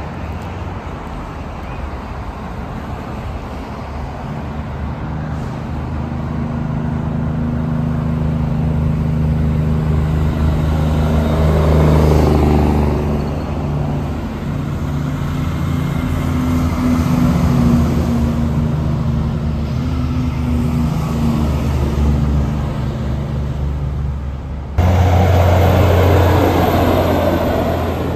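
Heavy diesel trucks running past at close range, a low, steady engine drone that swells to its loudest about twelve seconds in. The sound changes abruptly near the end to another engine drone, lower and louder.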